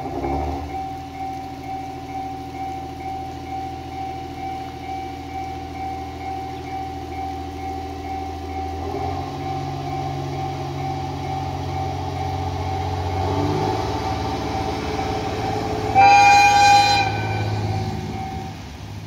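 JR Hokkaido H100-series diesel-electric railcar pulling away, its diesel engine running up in steps. It gives a short blast of its horn about 16 seconds in.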